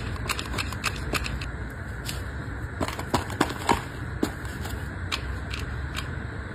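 Small clicks and taps of a hot glue gun and a wooden craft stick working on a kraft cardboard box, loudest in a cluster of taps about three seconds in, over a steady low background hum.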